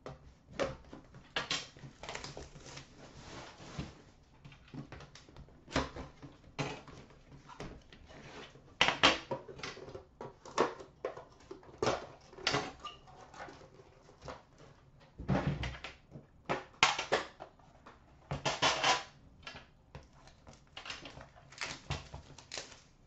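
Plastic shrink wrap crinkling and tearing as a sealed hockey card box and its metal tin are unwrapped and handled, in irregular crackly bursts and clicks. A heavier thud about fifteen seconds in.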